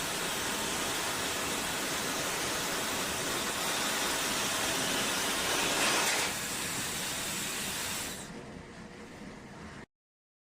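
OSOU 1200 W high-speed hair dryer blowing with a steady airy rush, a little louder around the middle. It drops to a quieter level about eight seconds in, and the sound then cuts off abruptly.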